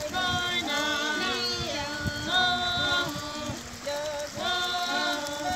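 Singing with music: a melody of held notes that step and bend between pitches, over a rough, noisy background.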